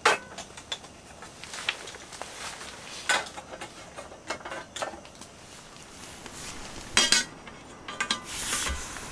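Metal camp cookware clinking and knocking as a frying pan is gripped with a detachable handle and set down on a gas burner: a handful of separate clanks, a few with a brief metallic ring, the loudest about seven seconds in.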